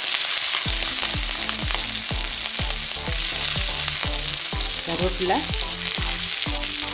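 Tempering sizzling steadily in hot coconut oil in a pan: chopped green chili and onion frying with mustard seeds and urad dal.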